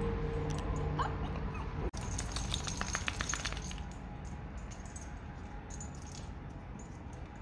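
Faint sounds of a small white dog on a leash, with a quick run of clicks about halfway through.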